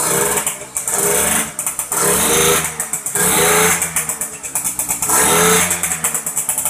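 A 1980 Yamaha V80's 79cc two-stroke single-cylinder engine, just started after long disuse, running and revved in short rising bursts about once a second.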